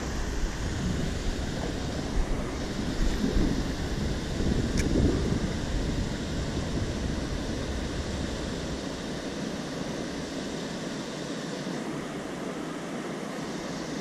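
Steady rushing of a rocky river's flowing water, with wind buffeting the microphone during the first half. A single short click comes about five seconds in.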